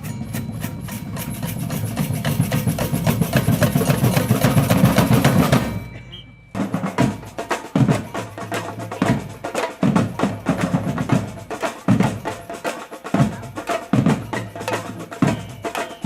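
Samba band drumming: a fast roll of drum strokes builds up and cuts off about six seconds in. It is followed by a steady beat of bass drum hits under quick snare strokes.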